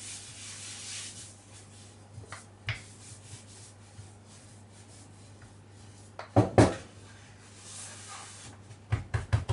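Wooden rolling pin and hands working chilled shortcrust dough on a floured worktop: a soft rubbing and rasping, with two loud knocks about six and a half seconds in and a quick run of knocks near the end.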